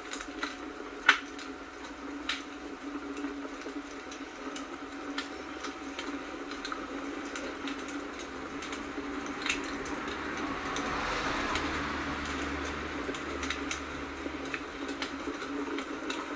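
Log fire crackling: scattered sharp pops and snaps, one loud pop about a second in, over a steady hiss that swells for a few seconds in the second half.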